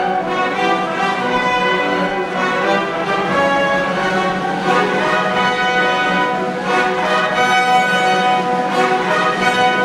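Orchestral background music with long held notes.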